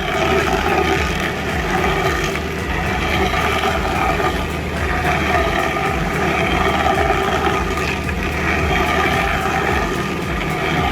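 Heavy machinery engine running steadily under load, a continuous mechanical drone with no breaks.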